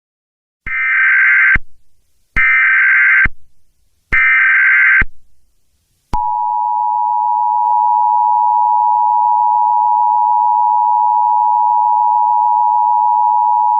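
Emergency Alert System SAME header: three short bursts of digital data tones, about a second each, then, about six seconds in, the EAS attention signal, a steady two-tone 853 and 960 Hz beep that holds without a break. Together they open an EAS Required Monthly Test.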